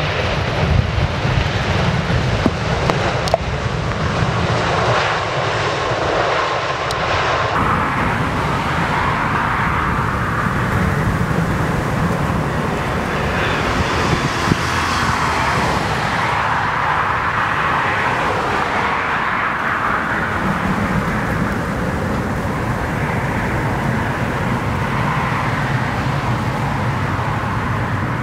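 Boeing 777 jet airliners landing: a steady, loud rush of jet-engine noise during the runway rollout. About seven and a half seconds in the sound changes abruptly to a second 777 touching down and running its engines in reverse thrust, the thrust reversers open.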